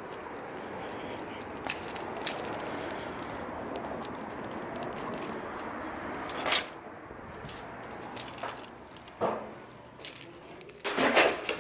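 Steady car cabin noise while driving, then a sharp knock about six and a half seconds in, a softer knock near nine seconds, and a cluster of clicks and rattles near the end.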